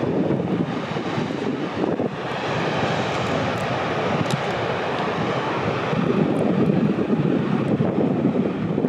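Steady rushing roar of whitewater from a giant breaking ocean wave, with wind buffeting the microphone.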